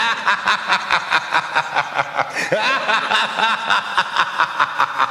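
Cackling laughter in rapid, even pulses, about four a second, with a few sliding pitches near the middle.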